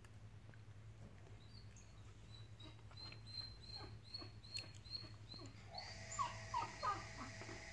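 Faint animal calls: a run of short high chirps, about three a second, then a few short whining cries about six seconds in.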